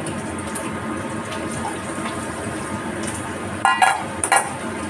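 Pork and newly added ingredients sizzling steadily in a hot wok. Near the end, two short clanks of metal on metal ring out over the sizzle.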